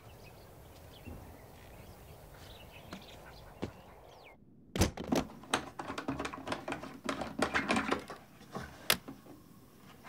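Faint outdoor ambience with a few thin bird chirps, then from about halfway a quick run of sharp plastic clicks, knocks and rattles as hands open a camera trap and handle the batteries in its battery tray, ending with one louder click near the end.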